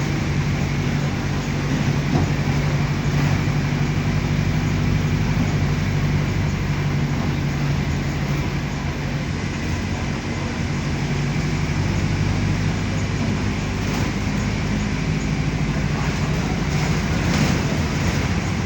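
Mercedes-Benz OF-1519 Bluetec 5 city bus's front-mounted diesel engine running steadily with a low hum, along with road noise as the bus drives.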